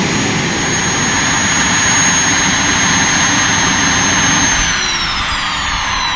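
Homemade turbojet engine with a new compressor wheel running with a rushing exhaust and a high turbine whine. About four and a half seconds in, the whine starts to fall steadily as the engine spools down.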